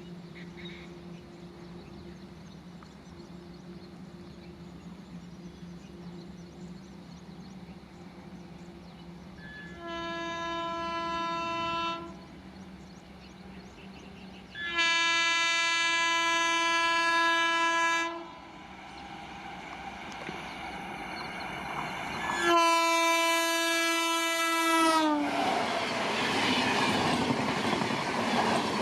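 An approaching electric locomotive sounds its horn three times: a short blast, a longer louder one, and a third whose pitch drops as the train passes. The pass is followed by the loud rush of the high-speed train and its wheels on the rails.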